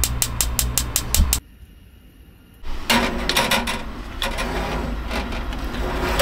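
Gas oven's spark igniter clicking rapidly, about five clicks a second, which stops suddenly about a second and a half in. After a short quiet gap comes a clatter of metal as a baking tray is slid into the oven.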